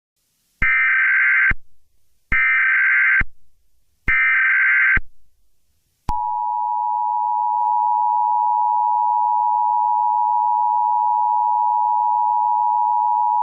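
Emergency Alert System SAME header: three bursts of buzzing data tones, about a second each, evenly spaced. About six seconds in, the steady two-tone EAS attention signal begins.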